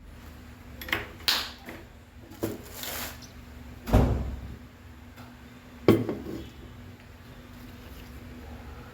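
Kitchen clatter: a string of knocks and clinks from dishes and utensils being handled and set down, the loudest about four seconds in and again about six seconds in.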